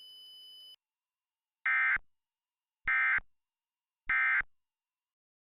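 Three short bursts of EAS SAME digital data tones, each about half a second long and a little over a second apart: the end-of-message code that closes an emergency alert. A faint steady high tone cuts off just before them.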